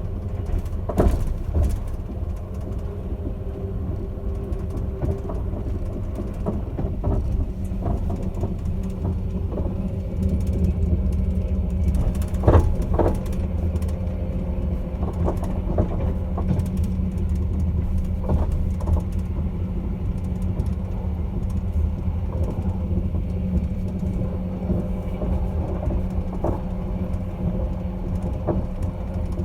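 Caledonian Sleeper train's steady low rumble with a faint steady hum, broken by occasional knocks and clunks, the loudest about a second in and just before halfway.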